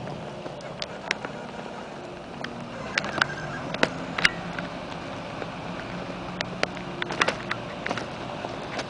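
Steady background traffic noise with a low hum through the middle seconds, and scattered sharp clicks and taps at irregular intervals.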